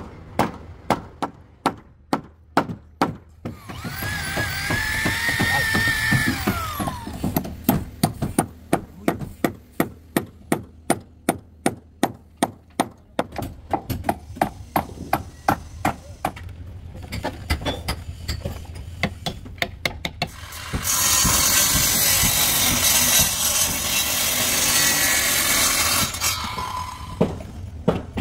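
Hammer blows on wooden planks being fastened to a wooden fishing boat's hull, a steady run of sharp knocks at about two to three a second. About four seconds in, a power tool whines for about three seconds and drops in pitch as it stops; another power tool runs for about five seconds later on.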